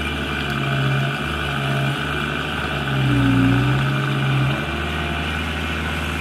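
Heavy machine's engine running steadily under load while pushing on a stubborn tree. Its pitch and loudness swell briefly about a second in and again a little past the middle.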